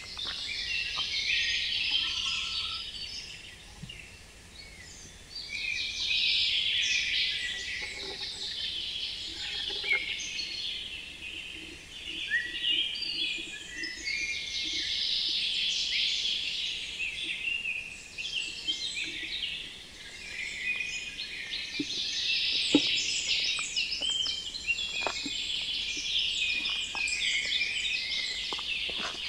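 Songbirds singing, several birds overlapping in quick, high-pitched trilling phrases that swell and fade every few seconds.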